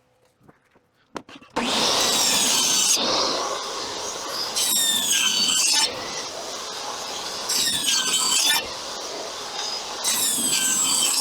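Power saw ripping wooden roof slats lengthwise: the saw starts about a second and a half in and bites through the wood four times, running free between cuts.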